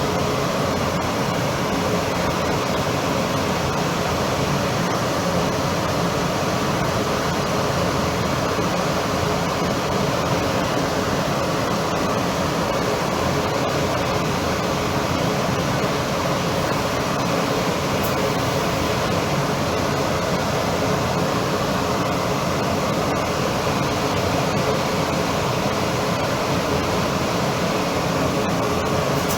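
Steady rushing noise with a faint hum, unchanging throughout, like a ventilation fan running.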